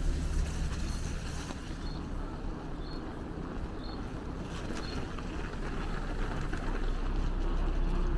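Steady low rumble of city traffic mixed with wind buffeting on the microphone. A few faint, short high squeaks come through about two to five seconds in.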